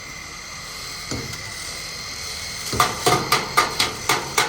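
Hammer blows on metal, a steady run of sharp strikes at about four a second starting a little past halfway, typical of panel-beating bus body sheet metal.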